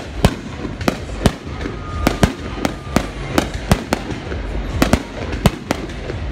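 Aerial fireworks going off in an irregular string of sharp bangs, about two or three a second, with crackling between them.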